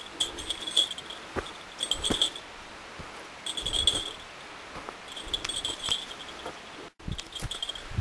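Footsteps climbing log steps on a dry, leaf-strewn forest trail, one step every second or two, each with scuffing and a high, thin jingle. The sound cuts out for an instant near the end.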